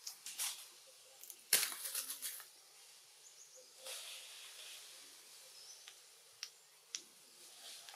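Short bursts of rustling from leaves and twigs as macaques shift and groom on a tree branch, the loudest about a second and a half in, with two sharp little clicks near the end.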